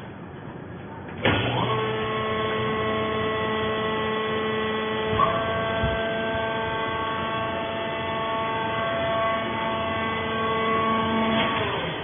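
A vertical hydraulic baler's power pack starts suddenly and runs with a steady, pitched whine from its electric motor and pump as the platen lifts and the bale is ejected. There is a short knock about five seconds in, and the sound cuts off just before the end.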